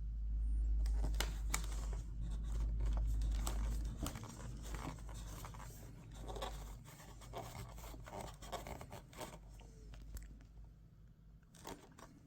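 Scattered clicks and crinkling rustles of something being handled close to the microphone, with a low rumble over the first four seconds.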